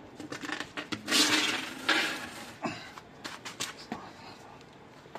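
Clicks and knocks of objects being handled, with two short, loud, noisy scrapes about one and two seconds in.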